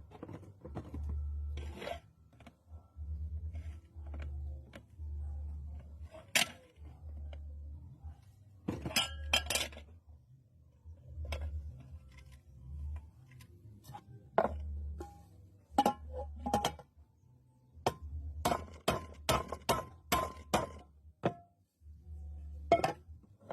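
Pressure cooker metal parts clinking and knocking irregularly as they are handled and worked on, with a low hum that comes and goes underneath.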